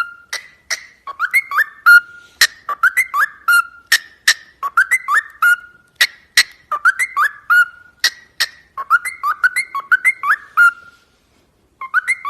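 A bird calling over and over: short phrases of quick rising whistled notes with sharp clicks among them, one phrase every second or two, with a brief pause near the end.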